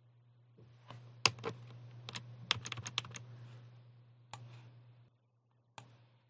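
Computer keyboard keys being pressed: about a dozen separate clicks starting about a second in, several in quick runs, then one last click near the end, over a steady low electrical hum.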